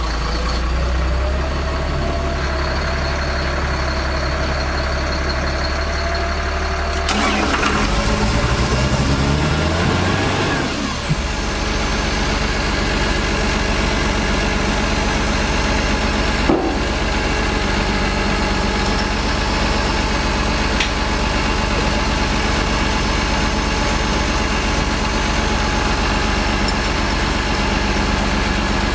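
Service truck's engine, just started, idling steadily; about seven seconds in it revs up, its pitch rising for a few seconds, then settles into a steady faster run to drive the truck's crane. One sharp clack about sixteen seconds in.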